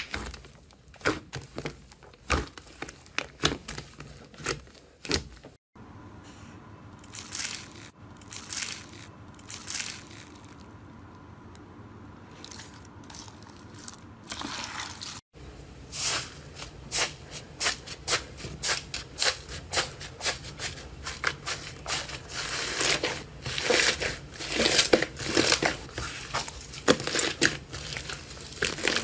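Slime being squeezed and pressed by hand close to the microphone, making a run of crackling, crunching pops. The sound changes abruptly about six and fifteen seconds in: a quieter stretch with a few crinkly bursts lies between the two changes, then the crackling grows dense and louder toward the end.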